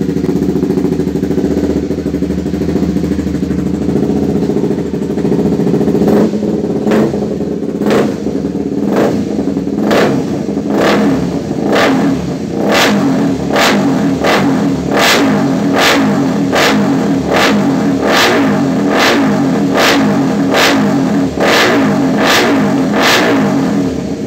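Honda CBR150R's single-cylinder four-stroke engine breathing through an aftermarket Proliner exhaust. It idles steadily, then from about six seconds in it is blipped repeatedly, a short rev roughly once a second.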